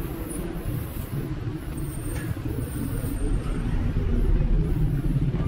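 Street traffic: cars driving past close by, a steady low engine and tyre rumble that swells as one car passes about four seconds in.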